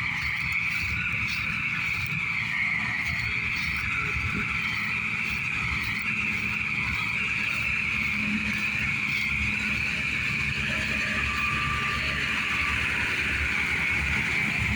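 Heavy harvest machinery running steadily: a low engine rumble under a constant high-pitched whine.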